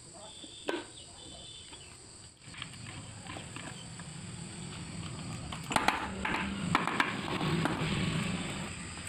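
Handling noise from Honda Activa engine parts being worked on by hand, with a cluster of sharp metal clinks about six to seven seconds in. A steady background noise rises about two and a half seconds in.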